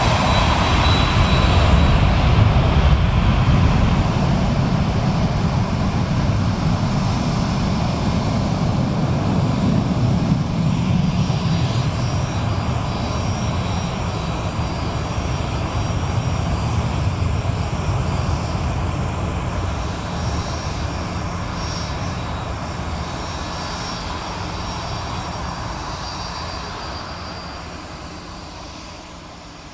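Business jet's turbofan engines at high power: a deep rumble that eases after about ten seconds, leaving a thinner whine that fades out toward the end.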